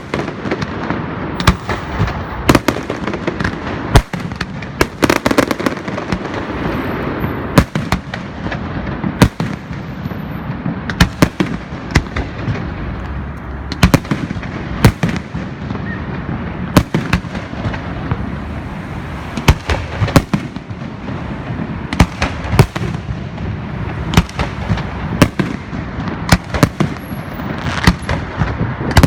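Aerial fireworks going off: sharp bangs of bursting shells, irregularly about one or two a second, over a continuous noisy crackle between them.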